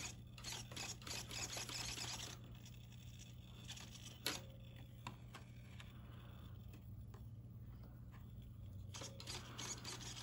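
Faint rustling and sharp clicks of a small plastic RC car and its transmitter being handled, over a steady low hum.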